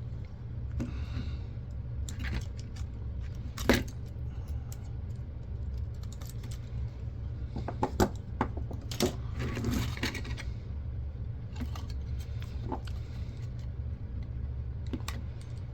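Small metal and plastic parts of an old camcorder clicking and clinking as it is dismantled by hand, with scattered sharp clicks and a short rustle about ten seconds in. A steady low hum runs underneath.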